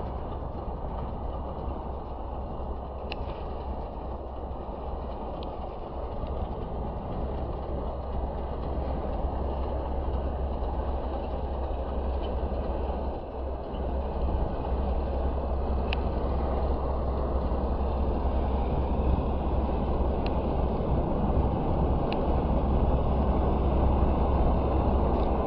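Train running with a steady low rumble that grows gradually louder, with a few faint clicks.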